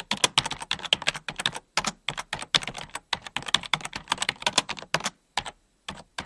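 Fast typing on a computer keyboard: rapid key clicks in quick runs, with a short break about two seconds in and a longer pause near the end.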